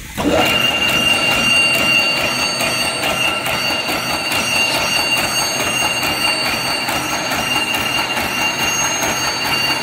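Double-strand reverse-twist barbed wire machine switching on at its start button and then running steadily. It makes a dense, even mechanical rattle of gears and twisting mechanisms, with a steady high whine over it.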